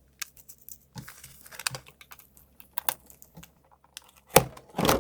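Scattered small clicks and taps of cardboard toy packaging being handled as a tab at the bottom of the box is pulled, with a louder rustle near the end.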